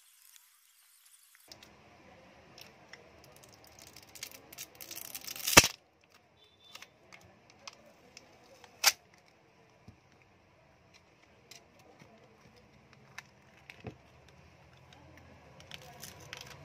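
Smartphone battery being pried and peeled off its adhesive by hand and plastic tool: scattered clicks and crackles, with a sharp crack about five and a half seconds in and another near nine seconds.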